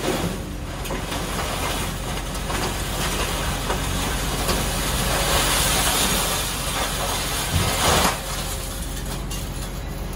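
Sennebogen scrap-handling machine's diesel engine and hydraulics running steadily while its orange-peel grapple bites into a bin of scrap iron, the metal scraping and clattering as the grapple closes and lifts, loudest just before eight seconds in.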